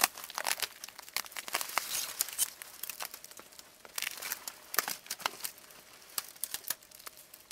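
Dry pinyon pine twigs and needles crackling and rustling as a person climbs in among the branches. A dense run of sharp crackles thins out toward the end.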